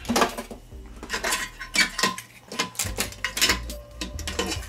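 Sheet-metal bracket over a TV's T-Con board clinking and rattling against the TV's steel back chassis as it is worked loose and lifted out: a string of sharp metallic clicks and scrapes.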